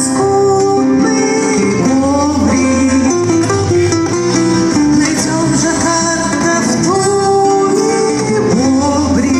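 Live acoustic band music, an instrumental introduction with plucked acoustic guitar under a sustained melody line that slides between notes.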